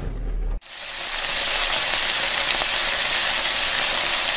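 After a short low hum, a steady sizzle of food frying on a covered electric hot plate builds up within the first second and holds evenly.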